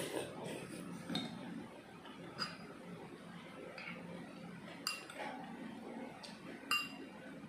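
A metal spoon clinking against bowls: several sharp clinks with a brief ring, roughly a second apart, the loudest near the end. Between them come soft chewing and eating sounds.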